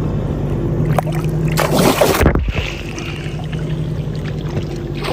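Hooked speckled trout thrashing and splashing at the surface of shallow bay water, with a loud splash about two seconds in. A steady low engine hum runs underneath.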